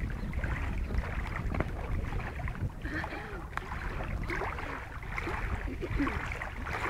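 Wind buffeting the microphone as a steady low rumble, with faint voices in the background now and then.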